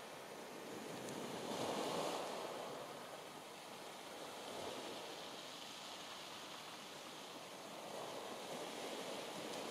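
Sea waves washing onto the beach, a steady rush that swells about two seconds in and again near the end.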